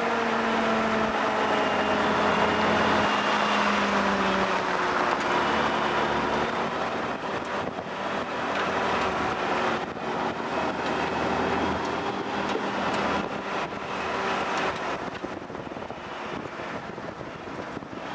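1948 Willys Jeep's engine running as it drives along a gravel trail, its pitch easing down a few seconds in, over a steady rush of wind and tyre noise. A few short knocks and rattles come through in the middle stretch.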